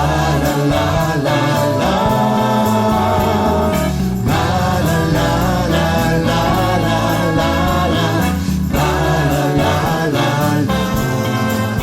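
Gospel song playing: choir voices held over an instrumental backing, with no clear sung words.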